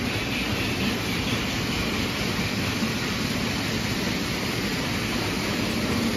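O gauge toy trains running on three-rail tubular track: a steady rolling rumble and clatter of metal wheels on the rails.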